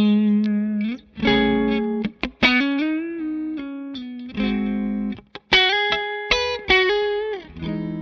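Background music: a guitar playing a melody of held notes that change pitch in steps, with a couple of brief pauses.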